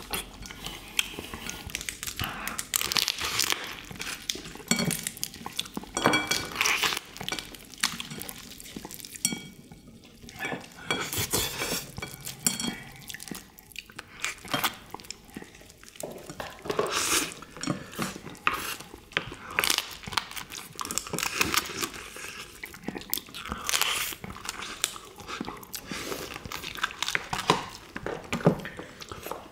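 Close eating sounds of soy-sauce marinated raw crab: crab shell crunching and being bitten, chewing, and spoons clinking against ceramic rice bowls, in irregular clicks and short bursts throughout.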